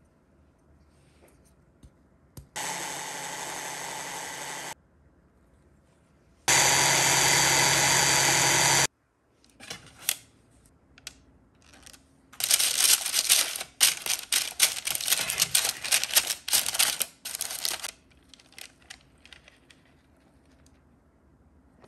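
Electric mini chopper's motor runs twice, blending cake batter: about two seconds at first, then louder for about two more seconds, stopping suddenly. Then parchment paper crinkles and rustles as it is pressed into a round cake tin, most densely in the second half.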